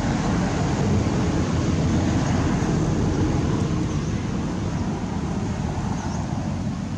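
Steady low rumbling noise with no clear rhythm or pitch, with a few faint high chirps about six seconds in.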